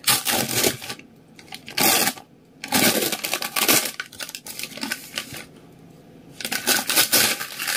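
Paper food wrapping rustling and crinkling as it is pulled open by hand, in four separate bursts.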